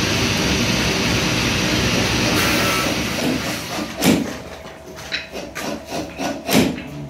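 Steady mechanical running noise that dies away a little past halfway. It is followed by a series of knocks and clicks, with two louder thuds: one about four seconds in and one near the end.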